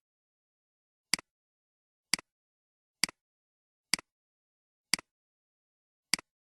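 Computer mouse button clicking six times, about once a second, each click a sharp press followed at once by a softer release tick.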